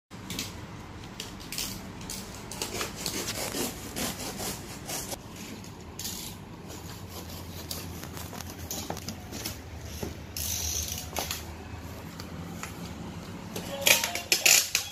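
Scattered light clicks and rubbing over a faint low hum, then a run of louder clicks near the end as a hand handles the front of a children's battery-powered ride-on motorbike.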